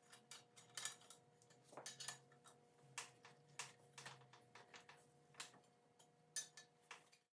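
Faint, irregular light metallic clicks and taps, two or three a second with short gaps, from an 8 mm hex wrench working the drive-side crank arm bolt of a Race Face Evolve XC crankset.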